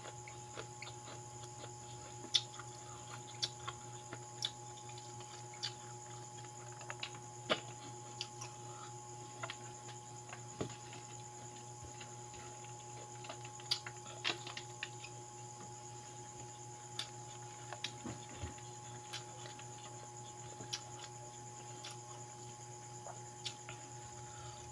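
Close-up eating sounds of fried dried fish (daing) and pancit noodles: soft, irregular clicks and crunches of chewing and lip smacks, a few a second at most, over a faint steady hum.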